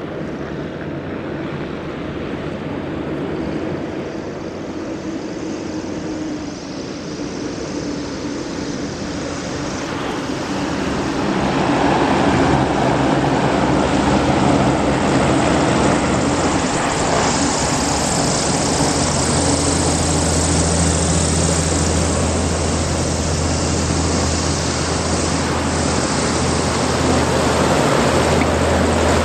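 Griffon 12000TD hovercraft 'Solent Flyer' running on its lift fans and twin ducted propellers: a steady low drone with a hiss of spray. It grows louder about eleven seconds in as the craft comes close.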